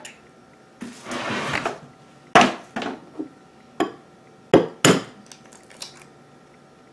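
An egg being knocked against the rim of a bowl to crack its shell: a string of sharp taps, the loudest about two seconds in and a close pair just before five seconds, after a brief rustle about a second in.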